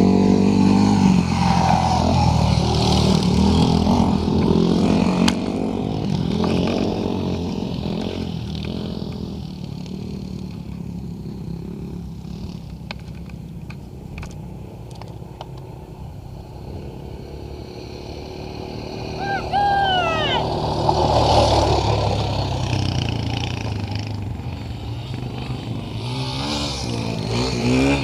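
Dirt bike engine running under riding, its note rising and falling as the throttle is worked. Louder in the first few seconds, easing off in the middle, then swelling again about two-thirds of the way in.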